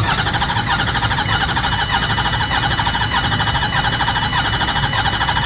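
Ford 6.4 L Powerstroke V8 diesel cranking over on the starter without firing. The cranking rhythm is uneven, with a very distinct one cylinder missing: cylinder 2 is dead, a sign of a mechanical fault rather than a failed injector.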